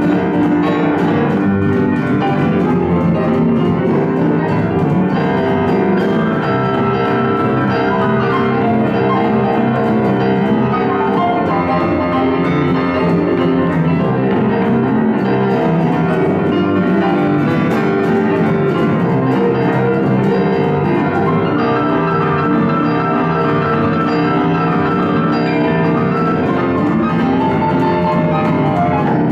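Grand piano playing live with an archtop electric guitar alongside, the piano to the fore.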